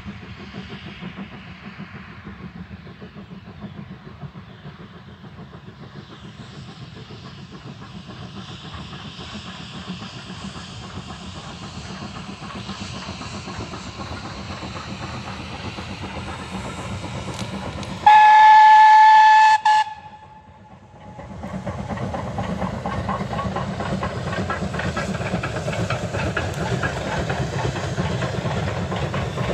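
Steam locomotive hauling a passenger train, its exhaust and running noise growing steadily louder as it approaches. About two-thirds of the way through, the whistle gives one long steady blast of nearly two seconds, the loudest sound. After that the train's exhaust and wheel noise stay loud as it passes close by.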